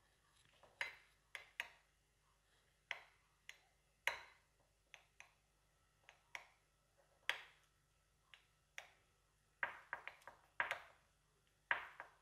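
Metal spoon clinking and scraping against a small ceramic bowl in irregular sharp taps while stirring crushed roasted peanuts into sweetened condensed milk, with the taps coming thicker near the end.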